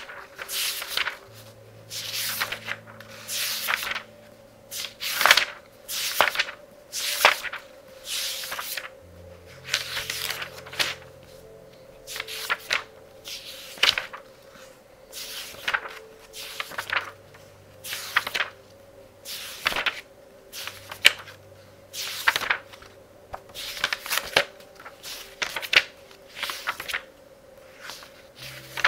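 Pages of a very thick book being turned quickly, one after another at about one page a second, each turn a short papery swish and flap. Soft music plays faintly underneath.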